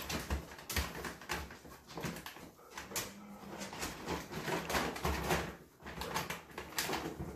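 A metal dog bowl clattering and knocking as a toddler handles it against a door, in many short irregular clicks and knocks, with short pitched vocal sounds now and then.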